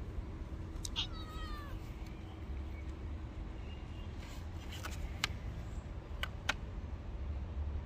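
A cat meows once, about a second in: a short call that falls in pitch. A few sharp ticks follow later, over a steady low rumble.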